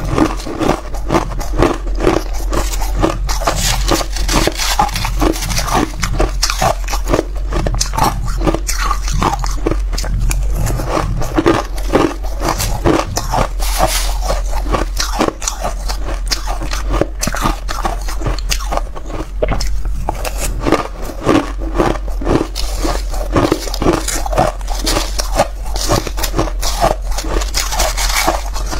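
Close-miked crunching and chewing of powdery freezer-frost ice, a dense run of small crisp crunches, with a metal spoon scooping through the ice.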